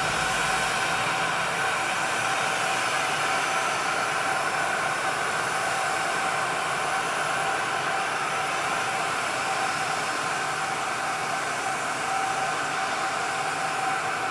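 A Gulfstream G650ER business jet's turbine running steadily on the ground: a rushing hiss with a steady high whine over it.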